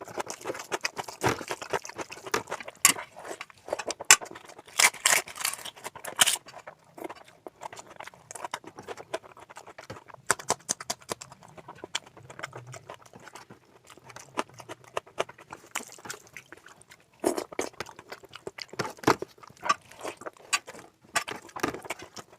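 Close-up eating sounds: wet chewing, lip-smacking and mouth clicks from a person eating oily mutton curry with rice, in irregular bursts of several smacks a second with short pauses.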